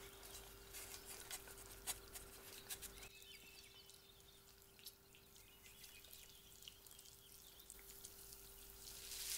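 Faint crackling and small clicks as a hand pulls the crisp, charred skin off a baked beluga sturgeon bedded on dry straw, densest in the first few seconds.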